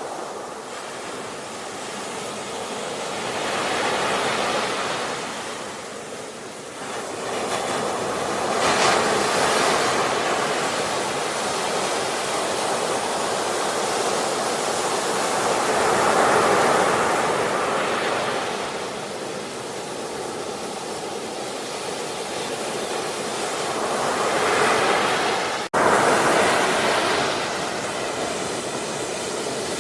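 Ocean surf: waves breaking and washing in, a steady rushing hiss that swells and falls back every several seconds. The sound cuts out for an instant near the end, then comes straight back.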